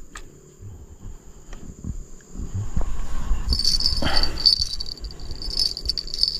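A steady high-pitched insect chorus that gets much louder about halfway through, over a low rumble of handling noise on the microphone.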